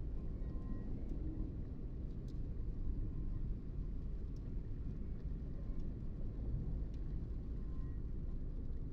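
Steady low rumble of a car driving, road and engine noise heard from inside the cabin, with faint scattered ticks.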